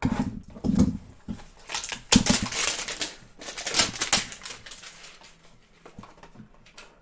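Cardboard trading-card hanger box and cards being handled on a table: a few soft knocks, then a couple of seconds of rustling and scraping in the middle, dying away near the end.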